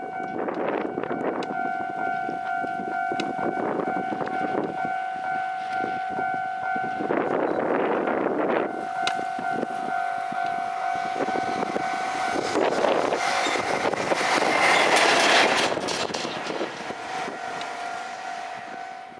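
EF210 electric freight locomotive and its train approaching and passing, the running noise swelling to its loudest about three quarters through and then fading, with gusts of wind on the microphone coming and going. A steady high tone runs underneath and weakens for a few seconds near the end.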